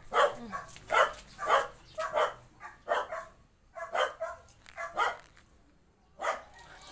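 Husky puppy barking: a quick series of short barks, about two a second, then a brief pause and one more bark near the end.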